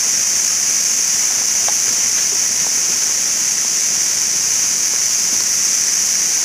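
A steady, even hiss, pitched high, that holds at one level throughout with no distinct events.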